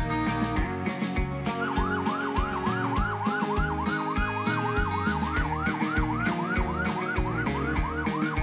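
Background rock music with a steady drum beat. About one and a half seconds in, an electronic emergency siren starts a fast yelp, its pitch rising and falling about two and a half times a second.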